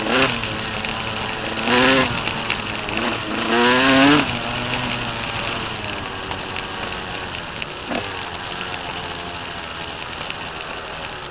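Small dirt bike engine revving up sharply, rising in pitch three times in the first four seconds, then running more steadily at lower revs while riding over a dirt track.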